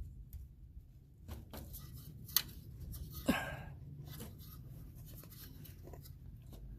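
Faint small clicks and scrapes of a plastic safety catch being worked off a fuel-line quick-connect fitting at a fuel filter, with one sharp click about two and a half seconds in and a short scrape just after.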